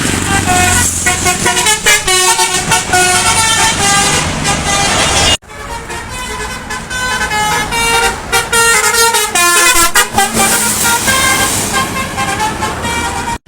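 Bus telolet horn, a multi-tone 'basuri' air horn, playing a quick tune of stepped notes over the rumble of the bus and traffic. The sound breaks off abruptly about five seconds in and starts again.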